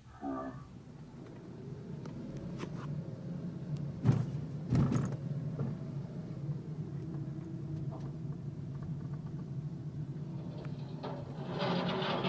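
Steady engine and road noise heard inside a moving car's cabin, with two sharp knocks about four and five seconds in.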